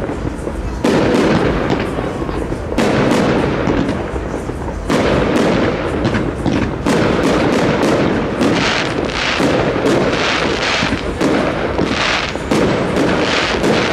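Fireworks display: aerial shells bursting in a quick, irregular series of bangs, each followed by a rolling echo. Short hissing sounds join in from about halfway.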